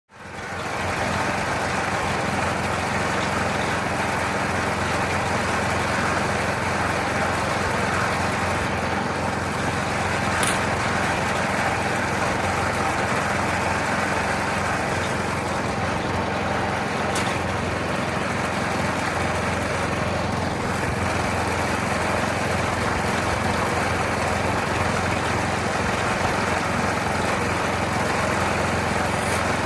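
Vintage gold trommel wash plant running steadily, its drum turning as driveway gravel passes through it. The sound comes in from silence at the start and holds an even mechanical run.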